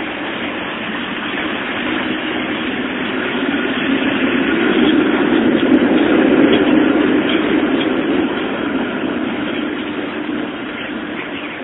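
A tram passing close by. Its running noise on the rails swells to a peak about halfway through and then fades as it moves on.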